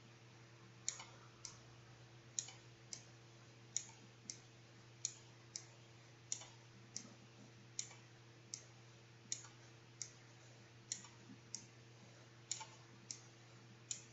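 Faint, sharp clicks, about one or two a second at slightly uneven spacing, over a low steady hum.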